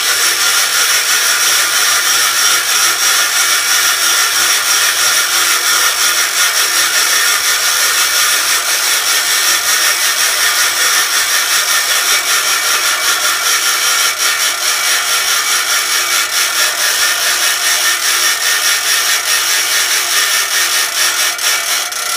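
Homemade gravity-driven generator rig running under load while its lifting wheel is hand-cranked: a loud, steady mechanical whine with several high held tones over a fast rattle from the gearing and drive.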